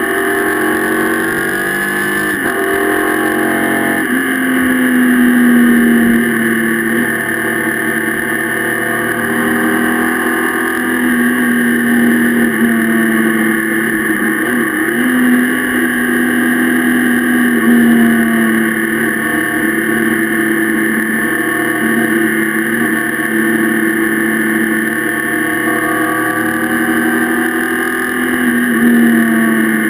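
Motorcycle engine running under way at road speed, its pitch climbing and dropping back several times as the throttle and gears change.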